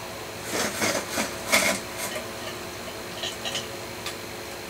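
A model locomotive being pushed and moved about by hand on a short test track: a handful of irregular scrapes and rattles of its metal wheels on the rails in the first two seconds, then a few faint clicks.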